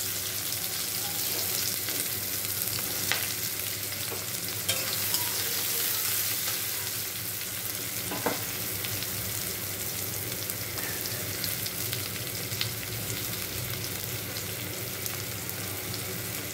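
Chopped onions, freshly added, sizzling steadily in hot oil in a kadai as they begin to fry. They are stirred with a metal spatula, with a few sharp knocks of the spatula against the pan.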